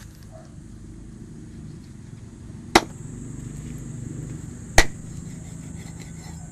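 Two sharp, loud knocks about two seconds apart, over a steady low background rumble and a constant high hiss.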